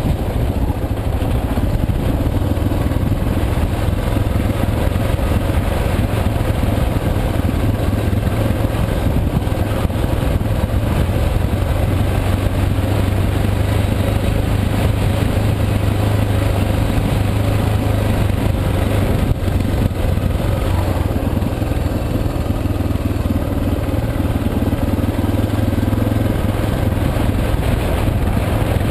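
Suzuki DR650's single-cylinder four-stroke engine running steadily while riding, heard from on the bike, with a steady rushing noise over it.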